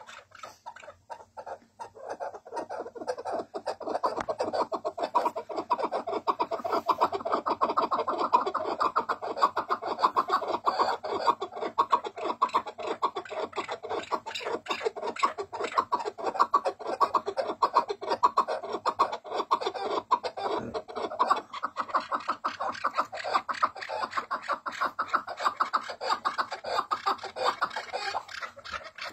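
Chukar partridge calling in a long, fast run of clucking notes that starts about two seconds in and keeps going without a break.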